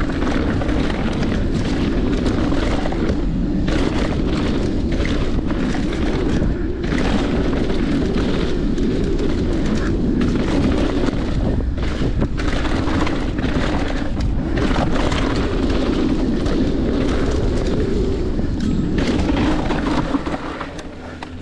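Heavy wind buffeting on an action camera's microphone as a Santa Cruz Nomad mountain bike runs fast down a rough dirt trail, with tyre rumble and repeated clattering knocks from the bike over rocks and bumps. It fades near the end.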